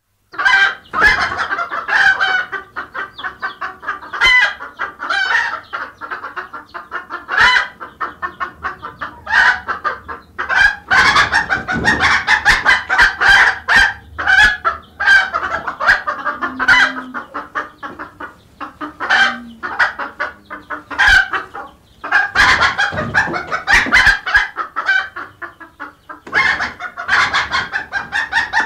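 A flock of hens clucking, with chicks peeping among them. The calls come in quick, overlapping runs with a few brief lulls.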